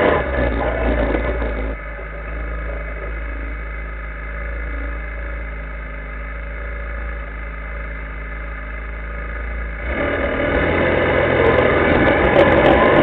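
Linhai ATV engine running while riding. It drops to a lower, quieter level about two seconds in and grows louder again near the ten-second mark, as the throttle is eased and then opened.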